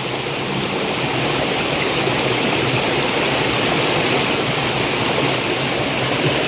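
Steady rushing noise, like water flowing, over a low steady mechanical hum.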